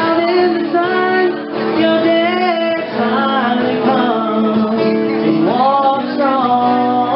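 A woman singing to an acoustic guitar, with long held, gliding notes over the strummed chords.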